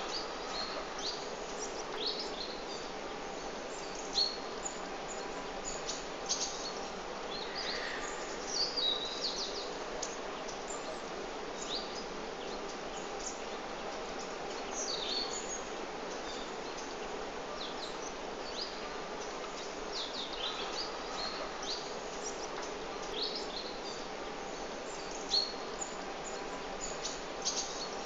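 Small birds chirping: many short, high chirps scattered every second or so, over a steady background hum of outdoor noise.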